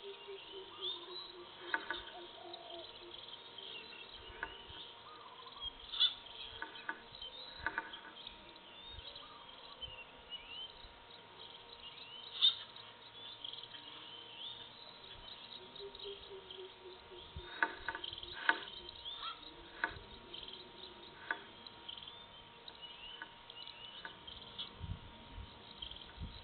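Wild forest-edge ambience: insects chirping high and thin throughout, a low, wavering bird call of a few seconds heard twice (right at the start and about two-thirds through), and scattered soft clicks and snaps. A faint steady electronic tone sits underneath.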